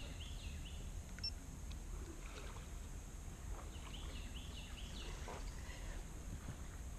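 Low, steady rumble of wind and handling on a pole-mounted action camera at the bow of a kayak. A bird gives a quick run of short high notes about four seconds in.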